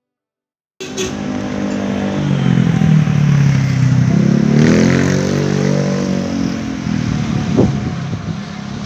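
A vehicle engine running and revving, cutting in suddenly about a second in; its pitch dips and then climbs again, over a steady rumble, with a sharp knock near the end.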